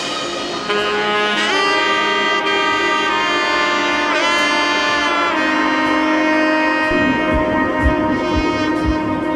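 Background music: a lead melody of long held notes with sliding bends, over sustained chords. Low beats come in about seven seconds in.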